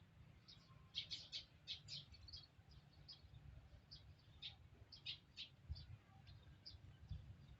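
Faint high-pitched animal chirping: many short, sharp chirps in quick, irregular succession, over a low background rumble.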